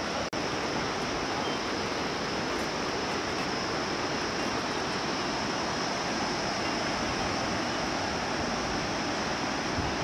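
Steady outdoor rushing noise, like running water or wind, with a thin steady high hiss over it. It drops out for an instant about a third of a second in.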